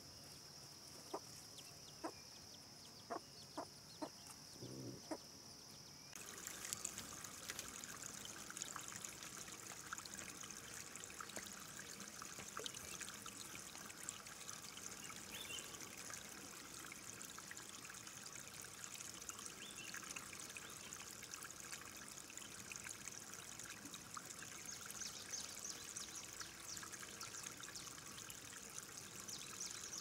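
A few short clucks and sharp clicks from chickens over a steady high insect-like tone. About six seconds in, this changes abruptly to a steady crackly trickle of water that runs on.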